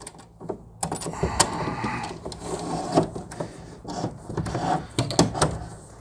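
Romex cable being pulled by hand down through a clamp connector into a metal breaker panel: the plastic jacket rustles and scrapes, with a few sharp clicks and knocks of cable and hands against the panel.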